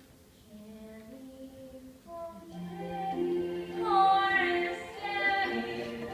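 Musical theatre song with singing over held accompaniment, very soft at first and swelling about two seconds in.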